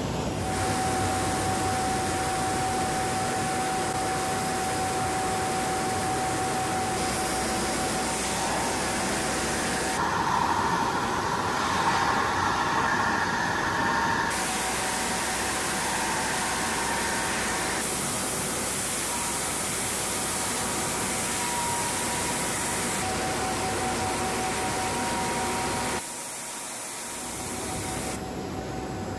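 Kündig combined wide-belt sanding and brushing machine running as it sands and brushes solid wood parquet pieces: a steady mechanical hiss with a constant whine. The sound shifts abruptly several times and drops quieter for a couple of seconds near the end.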